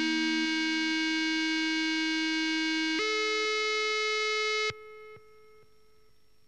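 Buzzy synthesizer-like tone, rich in overtones, played through a PFZ Impulse frequency modulator pedal: held notes that step up in pitch at the start and again about three seconds in, then cut off suddenly and fade out in a few small steps.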